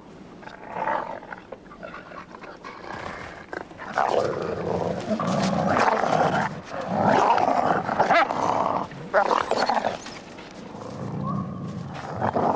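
Grey wolves growling and snarling in rough, repeated bursts, louder from about four seconds in.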